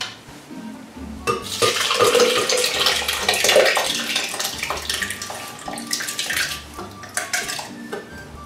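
Thick cooked rice congee pouring and slopping out of a metal saucepan into a glass blender jar, with small knocks and scrapes of the pan. It starts about a second in, is loudest soon after, and thins out toward the end.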